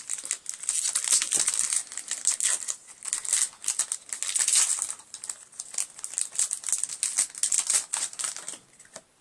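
Foil Pokémon booster pack wrapper crinkling as it is ripped open by hand, a dense crackle that stops about a second before the end.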